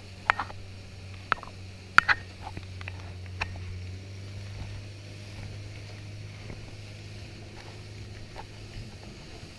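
Tiller outboard motor running at a steady speed with a low, even hum, pushing a small aluminium boat through chop. A few sharp knocks from the hull and gear riding over the waves stand out in the first few seconds, the loudest about two seconds in.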